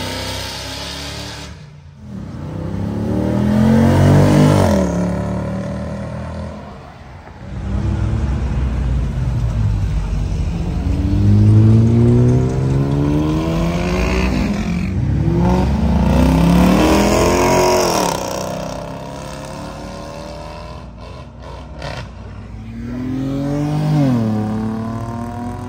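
Cars accelerating away one after another, about five in turn, each engine revving up with a rising pitch before it drops away.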